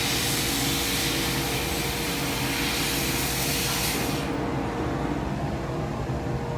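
Coherent Meta 1000 W CNC laser machine running: a steady machine hum with a loud rushing air hiss that cuts off sharply about four seconds in, leaving the hum.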